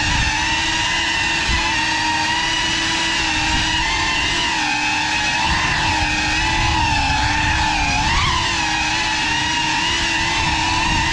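Small FPV drone's motors and propellers whining steadily, the pitch wavering up and down with throttle changes.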